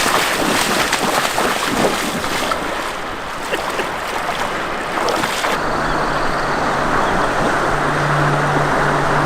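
Rushing river water, a steady loud rush. About five and a half seconds in the sound changes abruptly to a duller rush with a low steady hum under it.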